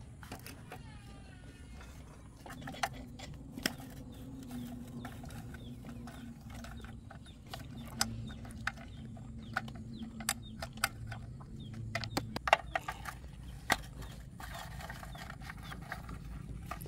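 Irregular metallic clicks and knocks from hand tools working on generator parts, over a low steady hum.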